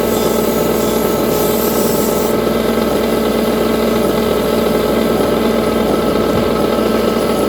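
Bench grinder running steadily with a wire brush wheel, its motor giving a loud even hum. For the first two seconds or so the wire wheel scrubs rust off a cast iron piece with a harsh hiss, which stops abruptly as the piece comes off the wheel, leaving the motor spinning free.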